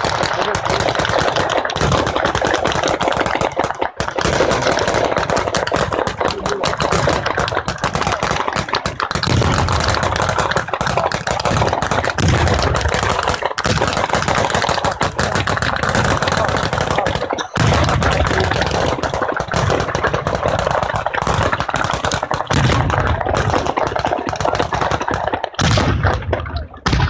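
Batteria alla bolognese: a long ground-level chain of firecrackers going off in rapid, unbroken succession, like machine-gun fire. Heavier low booms come in among the cracks several times.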